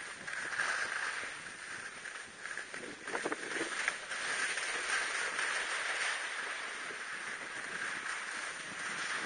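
Touring skis hissing over snow on a downhill run, swelling and easing with the turns, with a few short scrapes about three seconds in.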